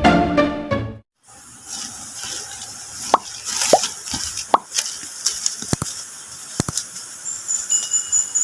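Background music ends about a second in. After a short gap, water plops and drips at irregular intervals, each a short falling 'bloop', over a steady high hiss.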